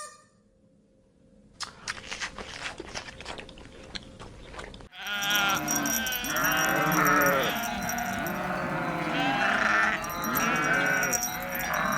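Near silence, then a faint rustling crackle; about five seconds in, a flock starts bleating, with many calls overlapping one another.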